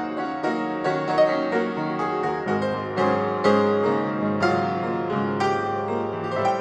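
Background music played on piano: a run of struck notes, several sounding together, each fading after its attack.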